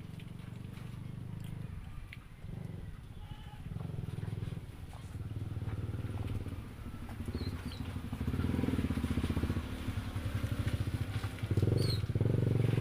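A small engine running with an even pulsing drone, growing louder over the second half and loudest near the end.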